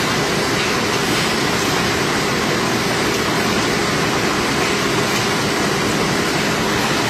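Automatic cartoning machine running: a continuous, even machine noise with a faint steady hum through it.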